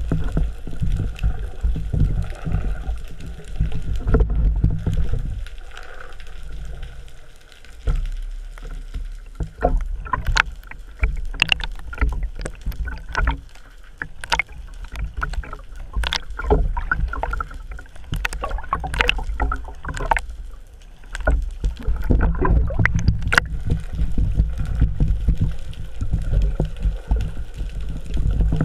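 Underwater sound picked up by a camera mounted on a speargun: a muffled, low rumbling wash of moving water against the housing, with a run of sharp clicks and knocks through the middle.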